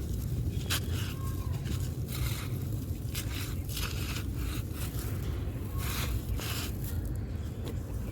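A crumbly, dusty yellow block crunching and crumbling into chunks, in a series of short, irregular crisp crunches with a few scraping rustles between them.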